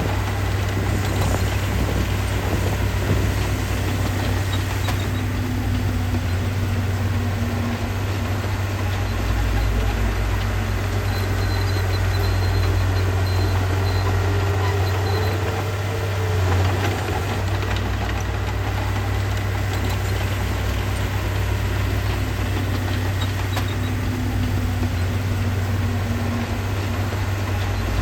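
Heavy-equipment diesel engine running steadily with a deep low rumble, with a brief change in its note about two-thirds of the way in.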